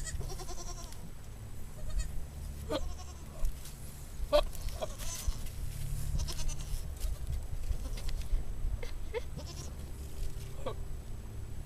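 Billy goat calling in short, pitched bleats, near the start and again about two seconds in, over a steady low rumble, with scattered sharp clicks through the rest.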